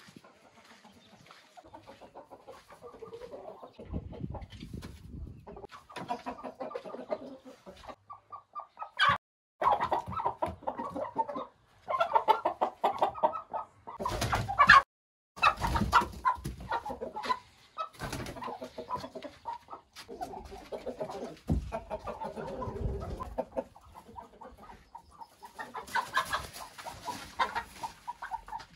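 Chickens clucking and calling, a mixed flock of hens and roosters. The sound breaks off abruptly a few times, and the calls are loudest in the middle.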